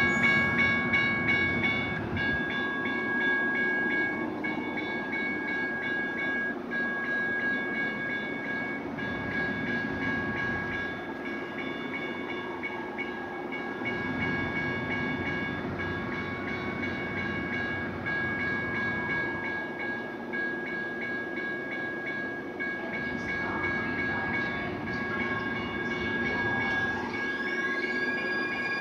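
Light-rail train (Siemens S70) standing at a station platform, its electrical equipment giving a steady high whine of several tones. Near the end the whine begins to rise in pitch as the train accelerates away.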